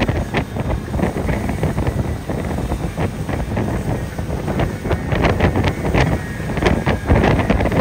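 Wind buffeting the microphone on a ski tow boat running at speed, over the boat's engine and the rushing water of its wake. Short crackling slaps of water and wind come through all along, more often in the second half.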